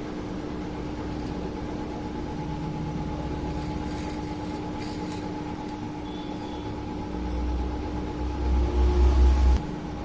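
Hot-air rework blower running with a steady fan hum, heating solder paste to seat a new phone battery connector on the circuit board. Over the last couple of seconds a louder uneven low rumble comes in, then cuts off abruptly just before the end.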